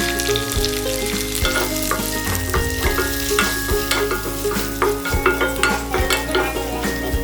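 Food sizzling in hot oil in a pan, with a utensil stirring and tapping against the pan in quick, irregular clicks.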